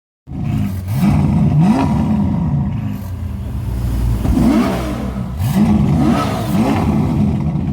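Ferrari sports car engine revved in short blips over a steady idle: about six quick rises and falls in pitch, two near the start and four in the second half.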